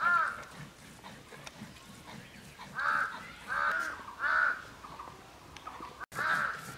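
A crow cawing: five single caws, three of them in quick succession about three seconds in.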